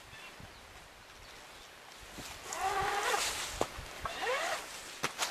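Several animal calls in the second half, some holding a pitch and some gliding upward, with a few sharp clicks from a tree strap's metal hook and buckle being handled.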